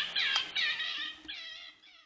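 Music with high, wavering sung or synthesized tones that repeat about twice a second, fading out near the end.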